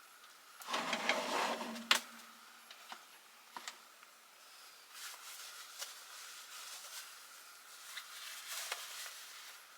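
Things being handled and shifted about: a rustling burst ending in a sharp knock, then scattered clicks and softer rustles.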